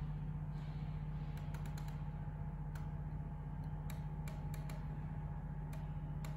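Dell P2419H monitor's bezel buttons clicking as they are pressed again and again to step the brightness setting in the on-screen menu, about a dozen irregular clicks. A steady low hum runs underneath.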